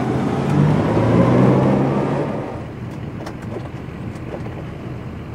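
Rinker motorboat's engine running steadily under way, with wind and water rushing past. At about two and a half seconds it gives way abruptly to a quieter outdoor background with a few faint clicks.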